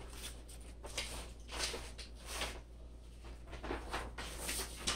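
Brown kraft packing paper rustling and a steel cart part being handled as it is lifted from the box and set down, heard as a series of short rustling and scraping noises.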